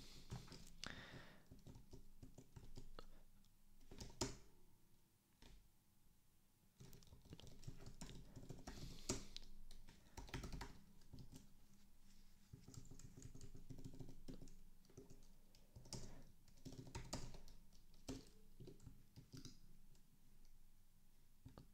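Faint typing on a computer keyboard: irregular runs of keystrokes with short pauses, as a line of code is typed.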